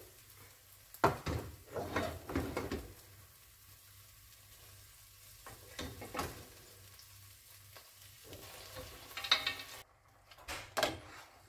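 Wooden spoon scooping cooked mutton from a steel pot into a pan of frying masala and stirring it, with scrapes and knocks of the spoon on the metal pots, most of them in the first three seconds, over a faint sizzle.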